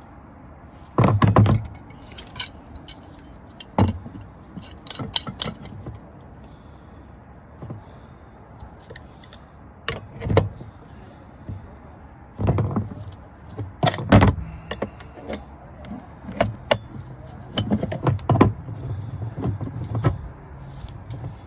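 A wrench clinking and knocking against a gas valve and galvanized pipe fitting as the fitting is turned tight: scattered metallic clanks and scrapes, irregular, some much louder than others.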